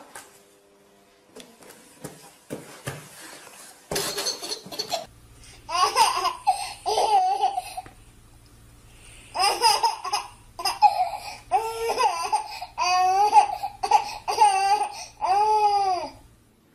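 Baby laughing in a run of short, high-pitched squealing laughs starting about five seconds in, with a few knocks and a rustling burst before the laughter begins.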